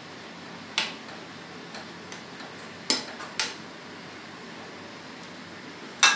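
A metal utensil knocking against a saucepan as boiled noodles are stirred in their water, four separate clinks with the loudest near the end, over a steady hiss.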